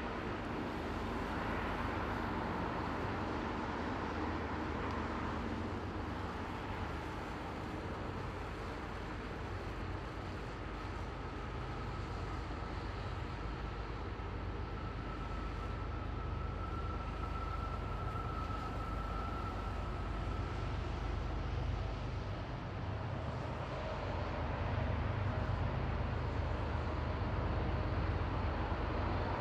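Low, steady rumble of a freight train's GE diesel locomotives working as they approach from a distance, growing louder near the end. A faint, steady high whine sits over the rumble through the middle stretch.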